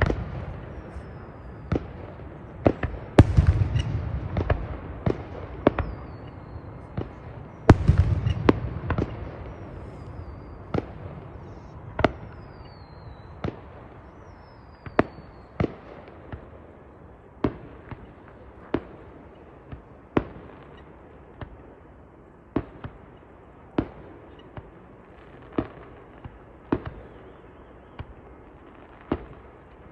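Fireworks going off: sharp bangs, with deep booming rumbles about three and eight seconds in, then single bangs every second or so.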